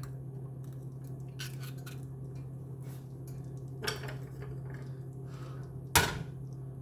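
Kitchen cookware and utensils clinking and knocking over a steady low hum, with one louder knock about four seconds in and a sharp, loudest knock about six seconds in.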